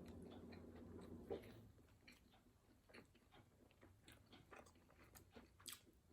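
Faint close-up chewing of food: a person's mouth making soft, irregular wet clicks while eating, with a low hum in the first second and a half.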